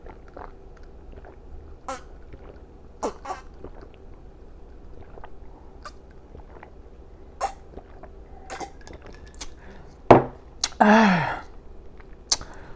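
Quiet sips and small mouth clicks from drinking, then about ten seconds in a low thump followed by a short burp that falls in pitch.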